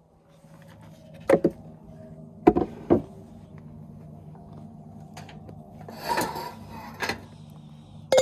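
Sliding cargo drawer in the back of an SUV being worked, with a few sharp knocks and rattles about a second in and again around three seconds. Near the end a metal pot and its glass lid clink as they are lifted.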